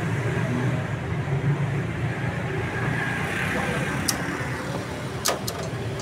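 Steady rumble of road traffic in the background, with a few sharp clicks in the last two seconds.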